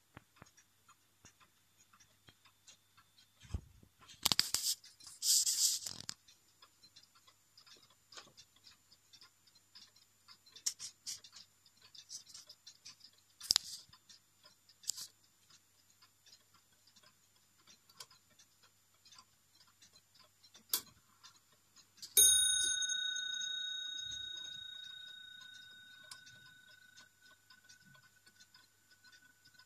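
Bourgeois 19th-century French wall clock ticking faintly and steadily, with a few loud handling knocks and scrapes. About 22 seconds in, the movement strikes its bell once, and the bell rings on and fades slowly over several seconds, struck as the hands are being turned by hand.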